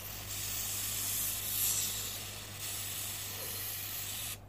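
Aerosol can of air-conditioner coil cleaner spraying onto the cooling fins in a steady hiss as the can is emptied. It cuts off briefly near the end.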